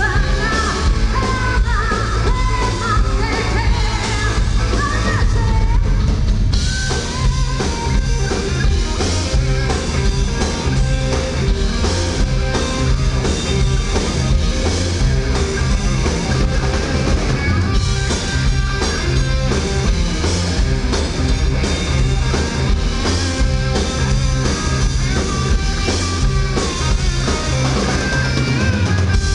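Live rock band playing loudly: a woman sings over electric guitars and drums for the first few seconds, then the singing drops out about six seconds in and the guitars and drums carry on with a steady beat.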